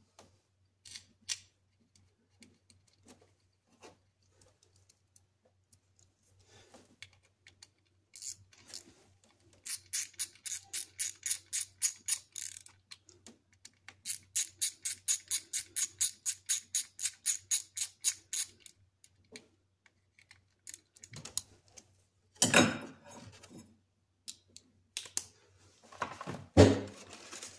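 Hand ratchet clicking in two runs of quick, even clicks, about five a second, as the two T20 Torx screws holding the MAP sensor are run in. Near the end come a few louder knocks and clatter of tools being handled.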